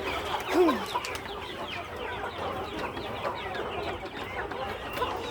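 A flock of country chickens clucking and chirping all together, a dense overlapping chatter, with one louder falling call about half a second in.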